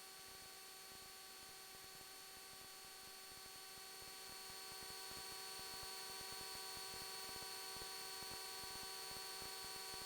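Faint, steady electrical hum with several fixed tones and a light hiss, heard through the aircraft's intercom audio feed while the radio is quiet.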